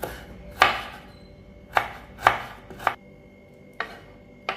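Kitchen knife slicing shallots on a wooden cutting board: about seven sharp knocks of the blade on the board at an uneven pace.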